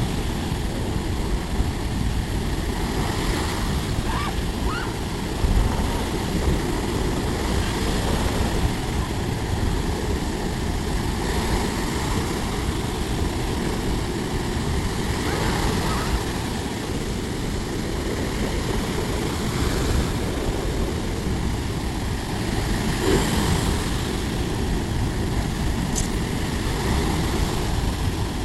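Sea waves breaking and washing up the beach, surging every few seconds, under a heavy rumble of wind on the microphone.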